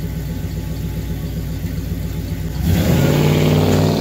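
Classic Chevrolet pickup's engine idling with a steady pulsing exhaust note, then, a little under three seconds in, revving up louder as the truck pulls away.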